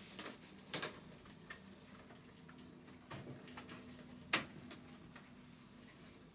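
Irregular small clicks and taps of HDMI plugs and a plastic angle adapter being handled and fitted into sockets, the sharpest click a little past four seconds in, over a faint steady hum.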